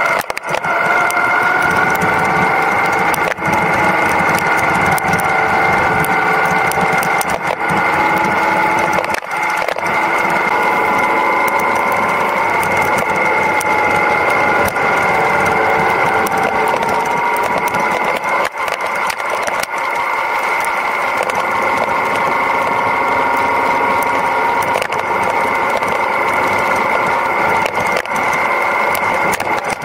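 Yamaha Ténéré 700's parallel-twin engine running as the bike rides along a dirt track, its pitch drifting gently up and down with the throttle. A few short knocks come through as the bike rides over the rough ground.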